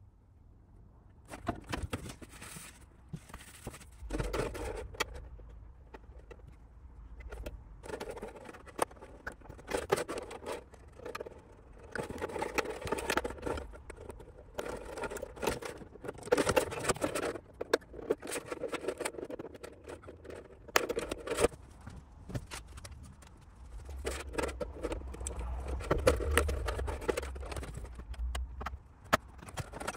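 A sharp hobby knife scoring a clear Lexan polycarbonate RC car body, with scraping and clicking as the thin plastic shell is handled and flexed. The sounds come in irregular bursts with short pauses.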